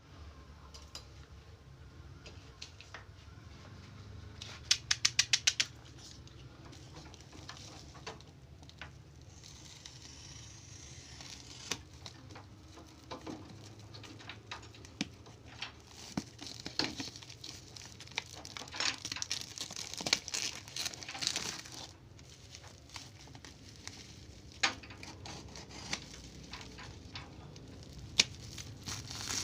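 Hands handling a toy's cardboard box and plastic packaging: scattered clicks, knocks and crinkly rustling, with a quick run of about seven sharp clicks about five seconds in, over a low steady hum.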